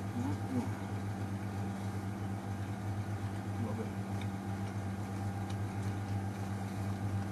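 Steady low electric hum of a chilled-drinks display fridge, with an even drone and fainter tones stacked above it.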